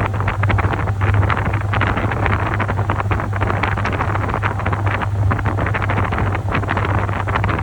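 Top-loading washing machine churning its load, water sloshing and splashing irregularly over a steady low motor hum.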